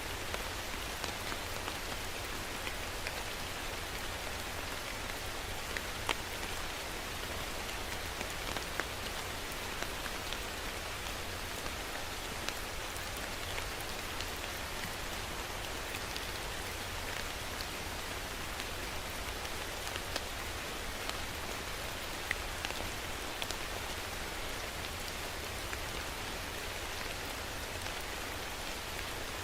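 Steady rain falling on a surface, with individual drops ticking sharply now and then over an even hiss.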